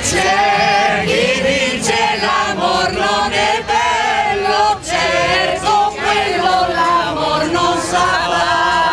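A mixed group of men and women singing a song together in chorus without instruments.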